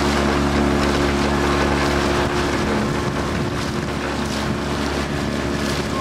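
Sailing boat's auxiliary motor running steadily at low speed, a constant droning hum, with wind on the microphone and water rushing past the hull.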